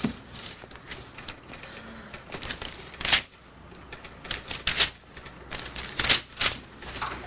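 Sheets of paper rustling and being shuffled and handled on a desk, in irregular crackling bursts.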